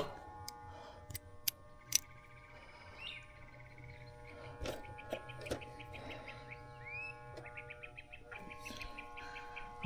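Faint bird chirps, with a few sharp clicks in the first two seconds and a steady faint hum underneath.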